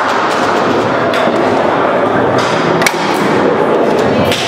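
Foosball play on a Leonhart table: scattered sharp knocks of the ball and the rod men, one standing out about three seconds in, over a steady din.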